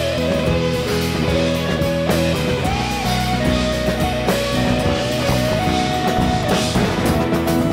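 A rock band playing an instrumental passage on electric guitars, bass, drums and keyboard. A held lead melody slides up and down between notes over the steady drums.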